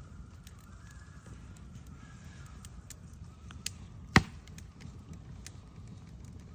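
Scattered faint clicks over a low background, with one sharp, loud knock a little past halfway.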